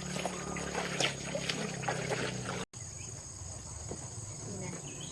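Crickets chirring steadily, a high continuous trill. Over them, in the first half, come a low hum and light clicks and knocks, which stop abruptly just past halfway.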